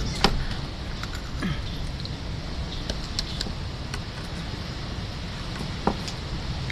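Small metal spoons clicking and scraping against opened sea urchin shells as the roe is scooped out: a sharp click just after the start, another near the end, and lighter ticks between, over a steady low rumble.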